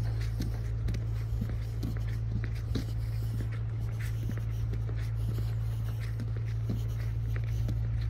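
Footsteps of someone walking on paving, about two steps a second, with scratchy rubbing over a steady low hum.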